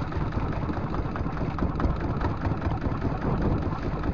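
Kubota diesel engine of a small outrigger fishing boat idling steadily.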